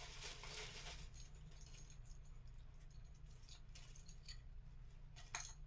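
Faint rustling and light clicks as decorations are handled and set on a small artificial Christmas tree, with one sharper click near the end. A steady low hum runs underneath.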